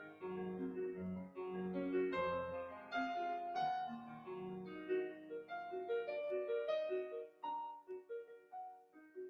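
Solo piano music, a gentle melody of struck, fading notes, with a bass line that drops away about halfway through.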